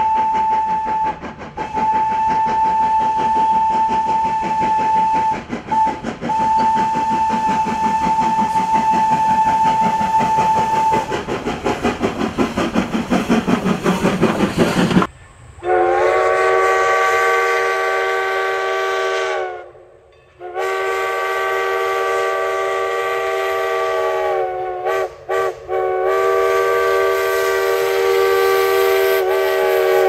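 Steam locomotive whistle blowing a long single-tone blast, broken twice briefly, followed by fast rhythmic exhaust chuffing that grows louder. About halfway through, the sound cuts abruptly to a deeper multi-note chime steam whistle sounding long chord blasts, with a gap near the two-thirds point and a few short stutters after it.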